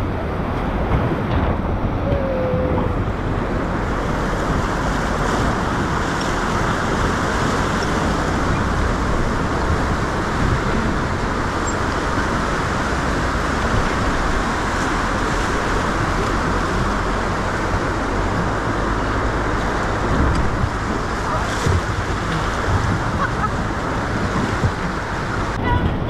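Steady rush of fast whitewater rapids around an inflatable raft, with a low rumble of wind on the microphone.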